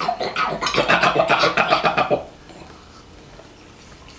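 A boy clearing his throat in a funny way, a rapid raspy rattle lasting about two seconds, then stopping.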